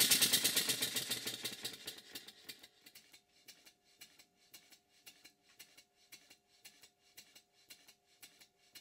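Stuart model beam engine running, its exhaust beats fast and loud at first, then slowing and quietening over the first two or three seconds to soft, regular beats about three a second. The engine's timing has been finely set, and it runs evenly both fast and slow.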